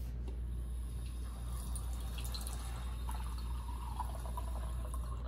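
Water running from a lab sink faucet into a small glass beaker, the filling sound rising in pitch over the last couple of seconds as the beaker fills.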